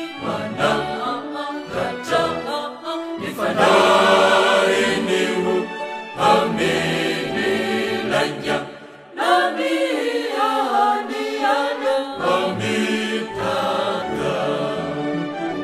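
A choir of men's and women's voices singing a sacred song.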